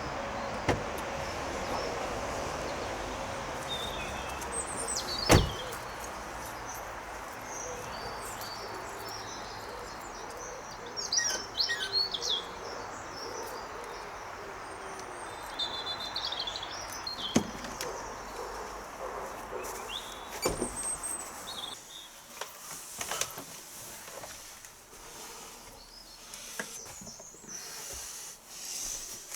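Outdoor ambience with birds chirping and a steady background hum. A few sharp knocks or clicks, the loudest about five seconds in. The hum drops away about two-thirds of the way through.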